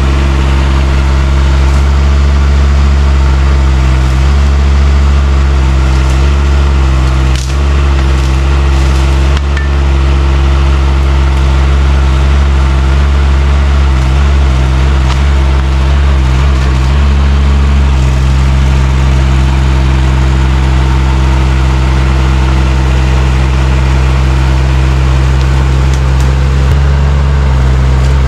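Chinese mini excavator's engine running steadily under working load as its rake tears into weeds and brush. The engine note shifts now and then as the hydraulics take load, with a few knocks about a third of the way in.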